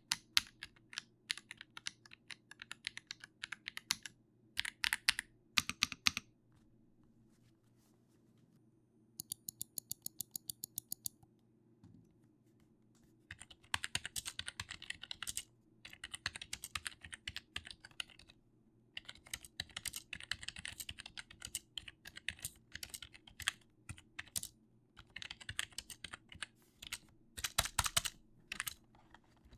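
Typing on a computer keyboard: spells of fast key clicks broken by short pauses, with a run of rapid, evenly spaced lighter taps about a third of the way in.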